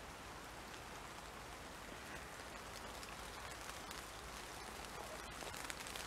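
Light rain falling on leaves and grass: a faint, steady hiss with scattered drip clicks that grow more frequent near the end.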